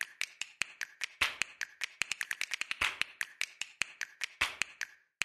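A rapid, irregular run of sharp clicks, several a second, with a brief break just before the end: the snapping sound effect of an animated logo intro.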